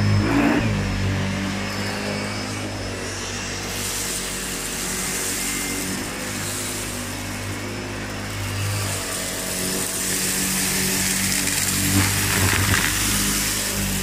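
SEBO Felix upright vacuum cleaner running with full suction and its roller brush on, pushed across cut-pile carpet into a pile of fluff and wood-shaving debris. A steady motor hum and rush of air, getting louder from about nine seconds in with a brief surge about twelve seconds in.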